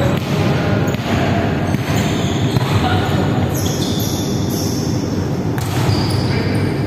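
Indoor volleyball game in an echoing sports hall: players' voices over a steady din, with sharp thuds of the ball being struck, the clearest about five and a half seconds in.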